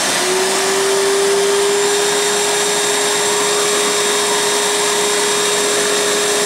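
Milwaukee M12 Fuel 0960-20 cordless compact vacuum running steadily at maximum power, just reaching full speed as the sound begins: a steady motor whine over a rush of air, moving close to 60 cubic feet per minute on a new filter.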